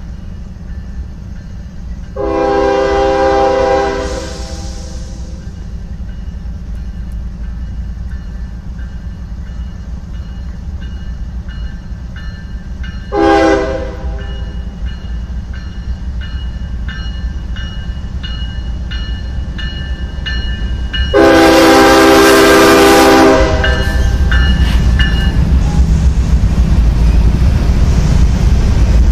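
The leading Norfolk Southern ES40DC's Nathan K5HL five-chime horn sounds three blasts at a grade crossing: a long one, a short one about ten seconds later, then a long one. Under the horn, locomotive engines rumble as the train approaches, and the rumble grows much louder over the last few seconds as the locomotives pass close by.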